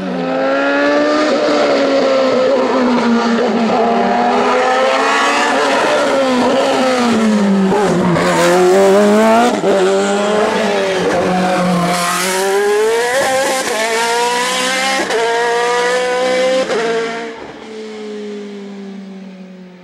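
Hill-climb race car engine at full throttle, revs climbing and dropping again and again through gear changes and corners, then fading away near the end.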